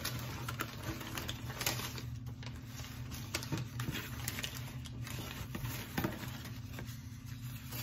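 A cardboard advent calendar being handled and opened: irregular light clicks, taps and rustles of cardboard and paper over a faint steady low hum.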